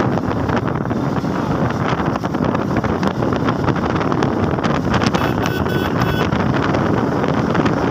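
Motorcycle engine running at cruising speed, with heavy wind noise on the microphone from riding. A brief thin high sound comes in about five seconds in.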